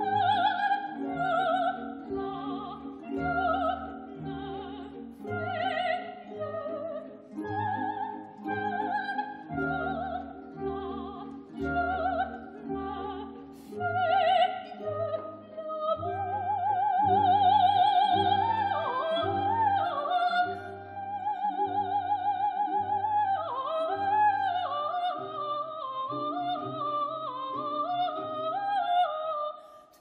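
Coloratura soprano singing an opera aria in French over an orchestra that plays short, evenly spaced bass notes. About halfway through, the voice moves into trills, high held notes and ornamented leaps.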